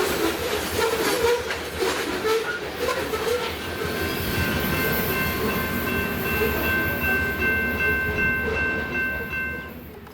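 Freight train rolling past with steady wheel and rail noise. About four seconds in, a train horn comes in as a steady held chord and sounds until the audio fades out near the end.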